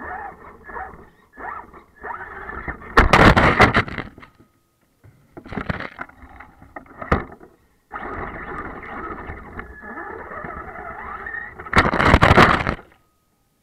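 Traxxas E-Revo RC truck's electric motor whining in short throttle blips, then held for several seconds. Two loud rushing stretches, about three seconds in and near the end, come as the wheels churn through deep snow.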